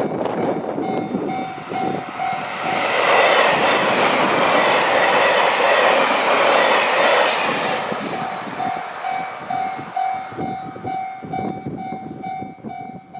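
Level-crossing alarm ringing a steady ding at about two and a half strokes a second while a fast train rushes past, its noise loudest for about five seconds from about three seconds in. Wind buffets the microphone throughout.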